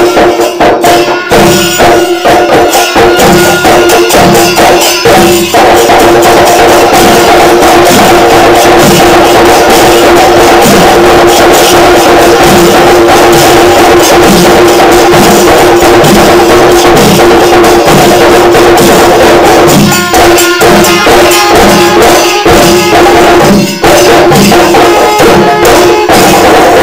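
Pancharimelam temple ensemble: massed chenda drums beaten with sticks in a fast rolling rhythm, with bright metallic cymbal jingle and a steady held tone underneath. The beating is densest and most continuous through the middle stretch.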